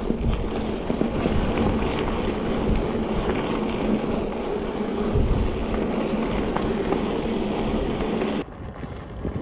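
Riding noise from a bicycle rolling along a path: steady tyre hum with wind buffeting the microphone. About eight and a half seconds in it drops suddenly to a quieter, windy background.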